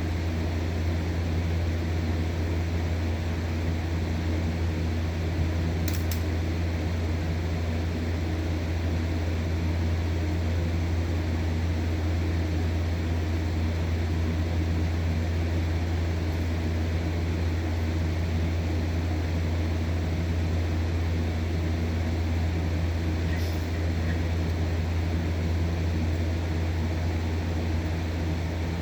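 Window fan running steadily: a constant low hum over an even rush of air. Two faint short ticks sound, one about six seconds in and one later on.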